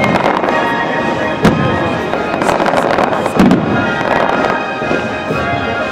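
Fireworks going off: several sharp bangs with crackling between them, over the show's music.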